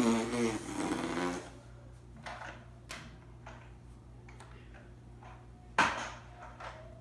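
A child's drawn-out vocal noise, then a plastic toy truck being pushed and rolled along a shuffleboard table, with scattered light clicks and knocks and one sharp knock near the end.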